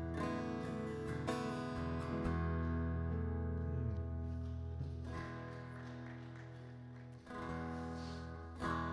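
Worship band playing an instrumental passage with no singing: a strummed acoustic guitar over sustained keyboard chords. The music eases off in the middle and swells back with stronger strums near the end.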